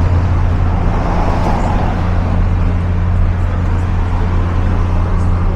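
Street traffic: a car driving along the street over a steady low hum.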